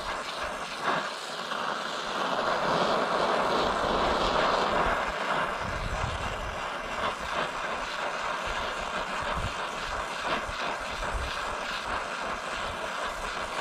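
Gas torch flame burning with a steady rushing hiss, preheating a cast iron skillet's handle joint toward about 900 degrees before welding.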